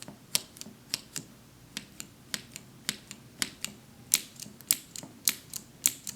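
Keys of a Cherry MX switch sampler board (red, black, blue and brown switches) pressed one after another. Each keystroke gives a sharp pair of clacks, about ten in all at a steady pace, and the clacks grow louder from about four seconds in.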